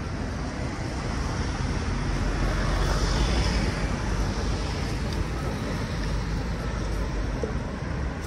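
City street traffic noise, a continuous rumble and hiss that swells as a vehicle passes close, loudest about three seconds in.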